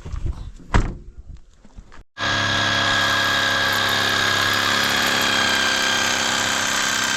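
A few knocks and handling noises, then a power tool's electric motor running steadily at speed, with a continuous high whine.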